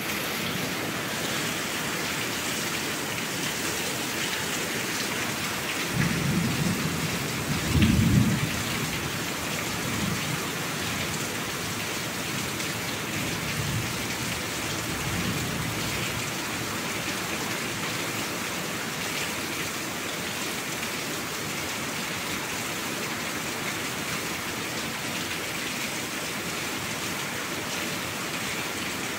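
Steady rain with low rolls of thunder, the loudest about six and eight seconds in and fainter ones a little later.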